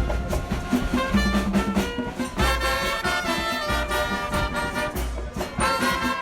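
Background music with a steady beat, bass and brass-like melody.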